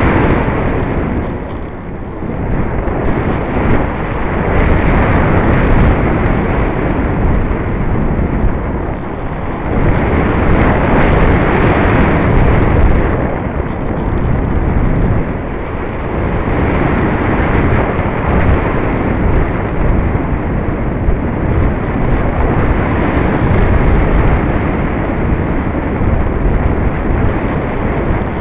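Wind rushing over a Skysurfer RC foam plane's onboard camera in flight, swelling and easing every several seconds. A faint steady high whine runs under it.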